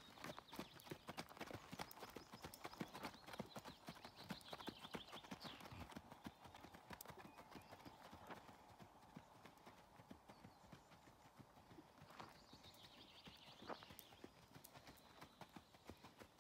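A ridden horse's hooves striking a sand arena in a quick, steady rhythm.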